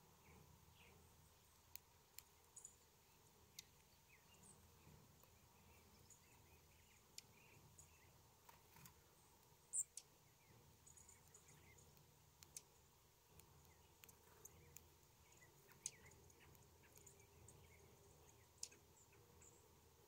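Faint, scattered high-pitched chip and tick notes of dark-eyed juncos feeding on seed on snow, each very short and spaced irregularly, the loudest about halfway through, over a low steady hiss.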